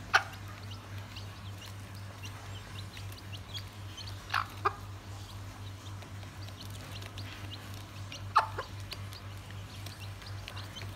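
A bantam hen clucking a few short loud times, twice in quick pairs, while her small chicks peep softly and almost continuously. A steady low hum runs underneath.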